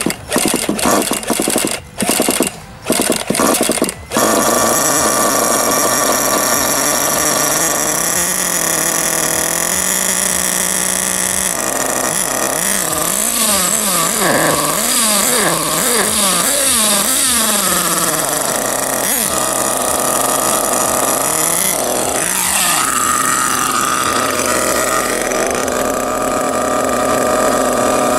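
HPI Savage's nitro engine on a cold first start: an electric starter spins it in short bursts until it catches about four seconds in, then it runs on its own. With the truck held off the ground, it is revved up and down repeatedly, its pitch rising and falling.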